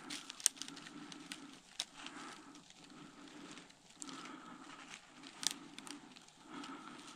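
Small spruce twigs snapping and branches rustling as gloved hands break and work them, with several sharp snaps, the loudest about half a second in and about five and a half seconds in. A low pulsing sound runs underneath, coming and going about once a second.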